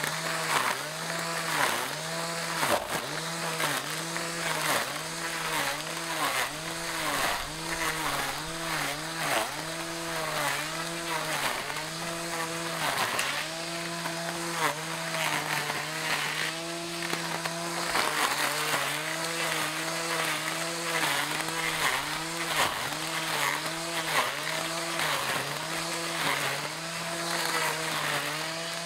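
Cordless electric grass trimmer fitted with plastic blades, running while it cuts tall grass. The motor's hum dips in pitch and recovers over and over as the grass loads it, over a constant swishing and slapping of the blades through the grass.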